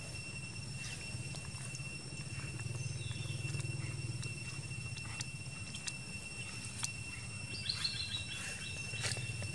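Insects droning steadily on one high pitch over a low steady hum, with scattered small clicks and rustles. About eight seconds in comes a brief run of high chirps falling in pitch.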